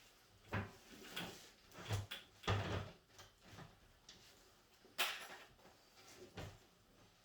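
Cardboard and styrofoam packaging and the chicken plucker's parts being handled during unboxing: a series of irregular knocks, bumps and scrapes, the sharpest about five seconds in.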